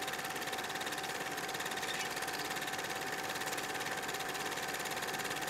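Cine film projector running: a steady, rapid mechanical clatter with a thin, constant whine.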